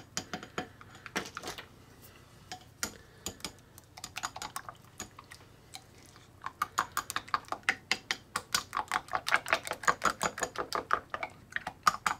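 A plastic spoon clicking against the side of a glass bowl as a wet mixture is stirred: scattered taps at first, then a quick, even run of about six clicks a second through the second half.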